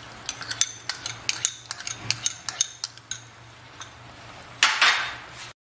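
Wok of thick masala cooking in chicken stock as curd is poured in, giving scattered sharp pops and clicks. A louder, rougher burst of noise comes near the end.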